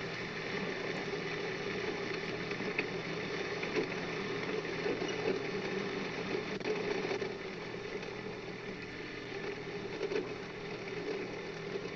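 Mini excavator engine running steadily.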